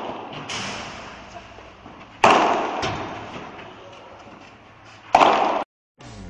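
Padel balls struck with solid paddles: two loud pops about three seconds apart, each ringing on in the echo of a large indoor court, with fainter ball knocks between. The sound cuts out suddenly near the end.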